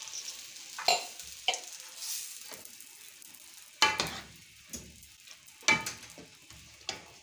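A steel ladle stirring moong dal and tomato masala with water in a metal pot, clinking sharply against the pot several times over a soft sizzle that fades away.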